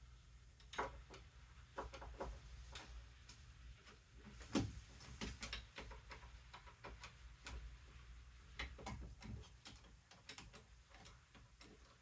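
Screwdriver working on a door knob's screws: irregular small clicks and taps of metal on metal, a few a second, with one louder knock about four and a half seconds in.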